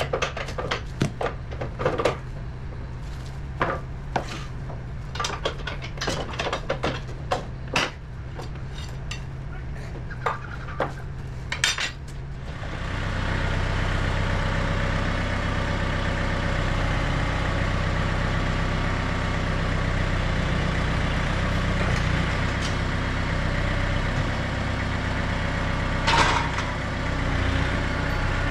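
Steel sawmill parts clanking and clicking as the support legs are raised and latched, over a low engine hum. About 12 seconds in, a louder tractor engine comes in and runs steadily, with one more clank near the end.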